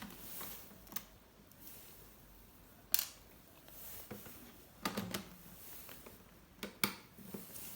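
A few sharp clicks and taps, some in quick pairs, from the plastic case and parts of a laptop being handled during disassembly.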